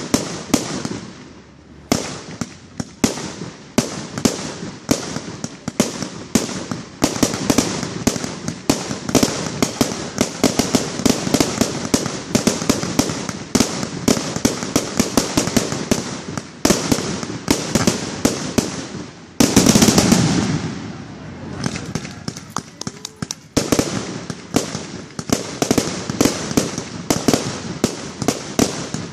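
Fireworks going off in rapid succession, many sharp cracks and pops crowding one another. About twenty seconds in there is a louder, deeper burst, after which the cracking thins for a moment before picking up again.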